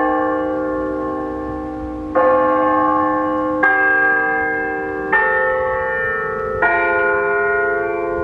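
Bell chimes ringing a slow tune, one new note struck about every second and a half, each ringing on until the next.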